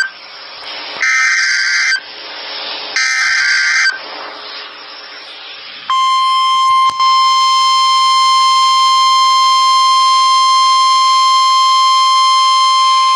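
Emergency Alert System header on NOAA Weather Radio: screeching digital data bursts about a second long, with a second of radio hiss between them. About six seconds in, the steady single-pitch warning alarm tone begins and holds, signalling that a new warning message follows.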